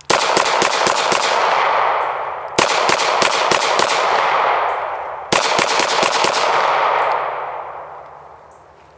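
Beretta 92G Brigadier Tactical 9mm semi-automatic pistol fired rapidly in three quick strings of shots, each string trailing off in a long, fading echo, until the gun is emptied.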